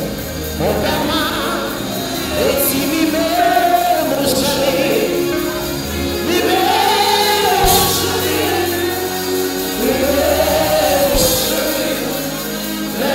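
Live gospel music: a man sings a gliding, held melody into a handheld microphone over band accompaniment.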